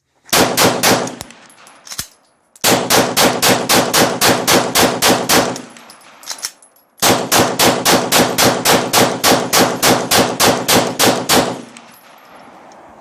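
Glock 17 9mm pistol firing rapid strings of shots, about five a second, from a 33-round extended magazine loaded with remanufactured 115-grain ball reloads: a short burst, a long string, a brief pause with a lone shot, then another long string that stops about a second and a half before the end.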